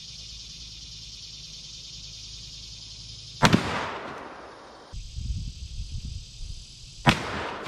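Two gunshots from a Smith & Wesson Model 500 revolver with a ported 8 3/8-inch barrel, firing .500 S&W Magnum 440-grain lead loads, about three and a half seconds apart: each a sharp blast with a long echo fading away.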